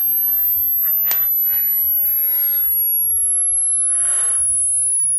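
A very high, thin hearing-test tone, a pure sine sweeping slowly downward in pitch as the test lowers the frequency toward the range people can hear. Three or four short breathy exhales and gasps come over it.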